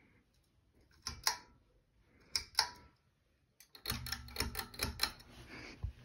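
Ceiling fan pull-chain switch clicking, two sharp double clicks about a second apart. Then the fan motor starts with a low hum under a quick run of clicks.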